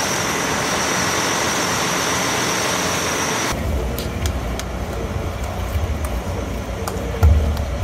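Charter coach bus running at the curb: a steady rushing noise with a thin high whine over it. About three and a half seconds in this gives way to a lower outdoor rumble with a few sharp clicks, and a heavy low thump comes near the end.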